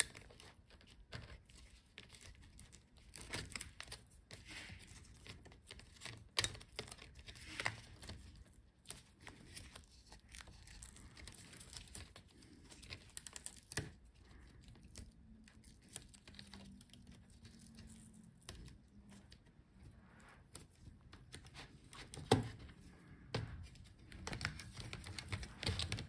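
Faint handling noises: scratching, light tearing of tape and scattered small clicks as a plastic pry tool works a laptop's display cable and its tape free inside the open case. A few sharper clicks stand out, the loudest about 22 seconds in.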